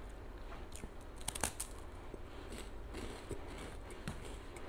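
A person chewing a crisp wafer, with a cluster of crunches about a second and a half in and softer crunches after.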